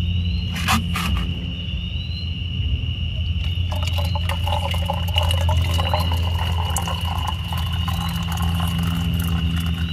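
Insects trilling steadily on one high note over a steady low hum, with a watery pattering of many small ticks coming in about three and a half seconds in.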